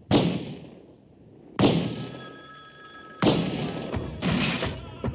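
Four Magnum revolver shots fired at target practice, each a sharp crack with a ringing room echo, spaced a second or so apart. A telephone bell rings between the second and third shots.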